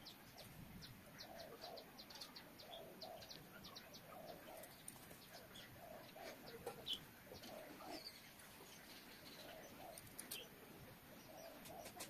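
Faint bird calls: a quick run of short high chirps in the first few seconds, with low coo-like notes repeating throughout.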